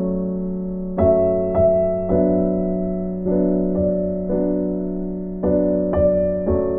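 Background music: a slow, gentle piano piece, chords struck about once a second and left to ring.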